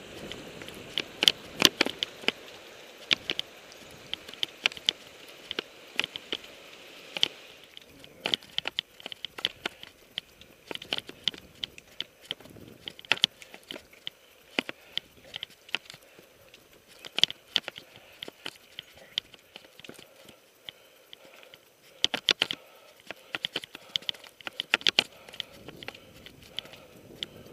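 Mountain bike ridden over rocky, rooty singletrack: irregular clicks, knocks and rattles from the bike and tyres on rocks and dirt, over a faint steady rush of motion.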